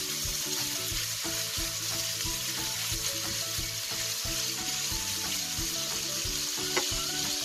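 Diced bacon sizzling steadily as it fries in fat in a nonstick frying pan, stirred with a silicone spatula that makes soft scrapes and taps against the pan.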